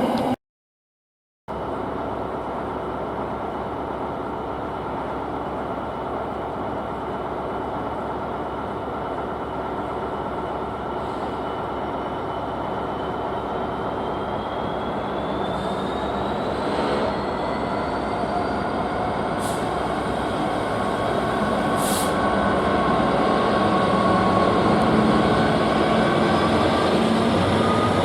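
Diesel freight train running, a steady rumble with a high whine that slowly rises in pitch, growing gradually louder toward the end. The sound cuts out briefly about half a second in, then resumes.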